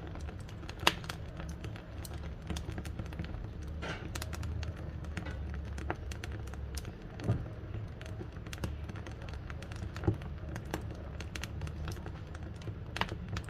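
Wood fire burning in a wood-fired cook stove: a steady low rumble of the flames with irregular crackling of the burning wood and a few louder pops, about a second in, midway, and near the end.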